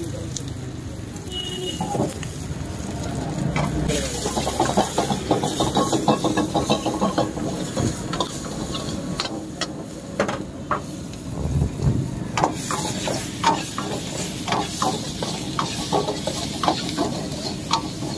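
Vegetables sizzling in a hot carbon-steel wok while a steel ladle stir-fries them, scraping and clanking against the wok in quick irregular strokes, thickest in the second half.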